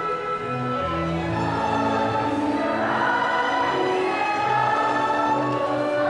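Middle-school chorus singing a slow song in parts, holding long notes, with lower notes joining about a second in.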